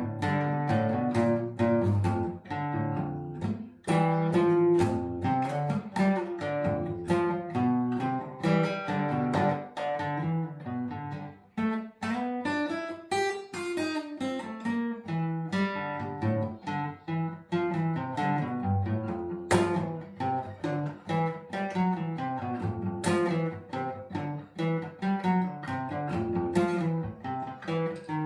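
Acoustic guitar playing an instrumental passage: a continuous run of plucked notes mixed with strummed chords.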